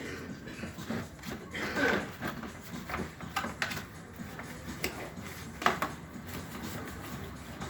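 Irregular clinks and knocks of metal tools and parts being handled, a few ringing briefly; the sharpest knock comes near the end.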